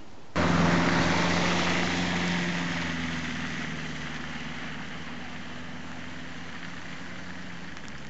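A motor vehicle's engine running, starting abruptly and loud, then slowly fading over the next few seconds as it moves off.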